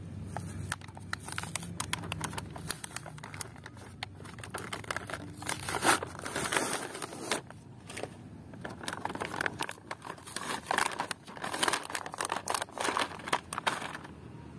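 Plastic toy packaging crinkling in the hands while its white card backing is torn open: an irregular run of crackles and tearing rips, loudest about six seconds in and again near the end.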